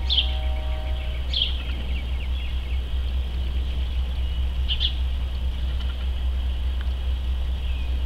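Short, high, falling bird chirps three times, near the start, about a second and a half in, and near five seconds, over a steady low rumble. A humming tone fades out about a second and a half in.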